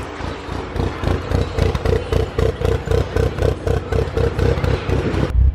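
Mitsubishi Evo 8's turbocharged 4G63 four-cylinder running just after its first start on a new tune, with a choppy, lumpy idle from aftermarket Kelford cams. A steady whine sits over the pulses through the middle, and the low rumble grows deeper and stronger near the end.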